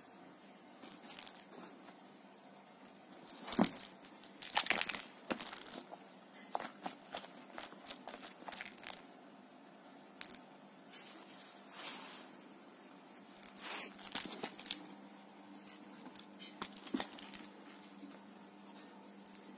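A cat wrestling a fluffy fur toy mouse on fabric upholstery: irregular scratching and rustling of claws and fur against the cloth, in flurries. The loudest flurry comes about four to five seconds in.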